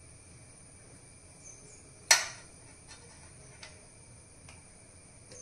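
A metal teaspoon clinks once sharply about two seconds in, then taps a few times faintly, as hard ghee is scooped and dropped into a stainless steel pan.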